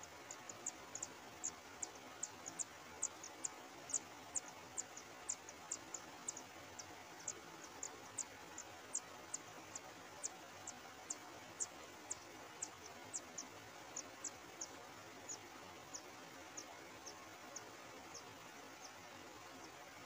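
Kacer air nestlings begging from the nest: a long run of short, very high, thin peeps, each sliding down, about two a second, over a steady faint hiss.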